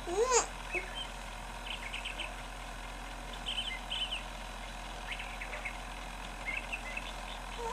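A three-month-old baby's short coo, rising and falling in pitch, at the very start, then several faint, brief high chirps scattered through the rest.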